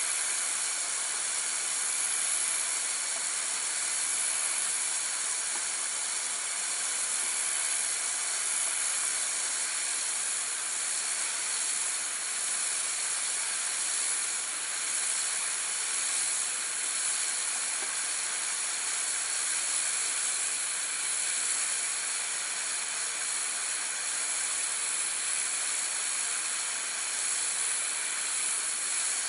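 Kärcher K2 Compact pressure washer's high-pressure water jet spraying against a textured outdoor wall: a steady, unbroken hiss.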